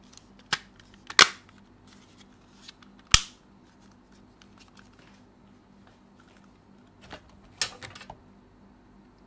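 Plastic snap-fit clips of a PS5 DualSense controller's back shell clicking into place as the cover is pressed on: sharp clicks, two loud ones in the first few seconds and a small cluster near the end.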